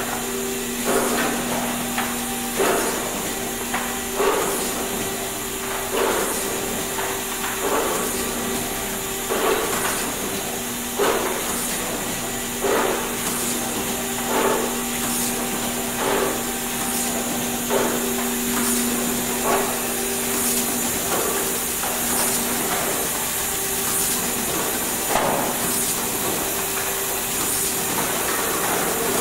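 Markem rotary golf-ball pad printer running: a steady machine hum and hiss with a regular knock about every second and a half as it cycles through the balls.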